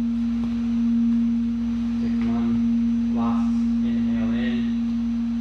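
Singing bowl ringing one steady, sustained low tone, with faint talking underneath.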